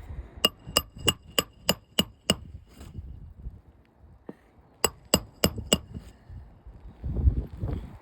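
Hammer driving roofing nails to re-nail an asphalt shingle: a quick run of seven ringing metal strikes, then four more a couple of seconds later. A low rumble near the end.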